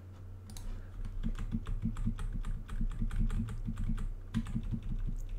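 Computer keyboard keys tapped in a quick run of clicks, the arrow keys pressed again and again to step frame by frame, with a brief pause near the end.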